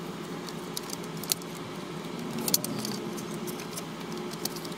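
A plastic CD jewel case and its paper booklet being handled on a tabletop: scattered light clicks and taps with soft rustling.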